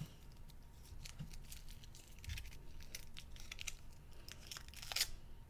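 Foil wrapper of a chocolate ladybug crinkling and tearing as it is peeled off by hand, a run of small crackles with a louder crackle near the end.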